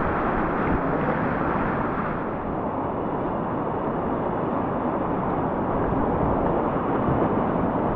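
Steady rush of whitewater rapids: a dense hiss and roar of moving river water with no distinct splashes, easing slightly about two seconds in.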